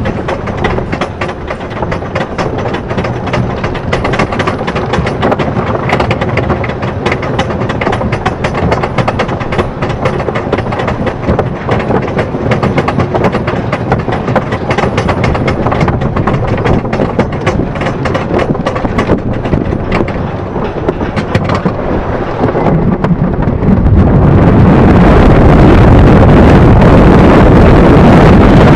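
Wooden roller coaster train hauled up the lift hill by its chain, a steady rapid clatter of the lift chain and the anti-rollback clicking under the cars. Near the end the clatter gives way to a louder rush of wind on the microphone as the train crests the hill.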